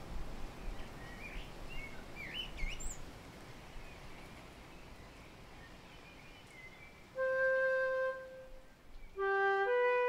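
Birds chirping a few times over a steady low hiss. About seven seconds in, a woodwind plays one long held note, and near the end a louder woodwind melody begins in the background music.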